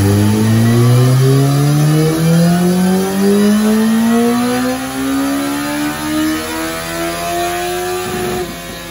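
Kawasaki ZX-14R's inline-four engine, breathing through Two Brothers slip-on mufflers, pulling at full throttle on a chassis dyno for a baseline run. Its revs climb steadily for about eight seconds, then the throttle is shut and the pitch starts to fall.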